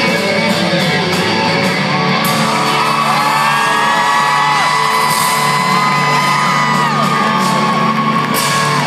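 A country band plays the close of a song, with several female voices holding long harmonised notes that slide between pitches over guitar and band. Whoops come from the audience.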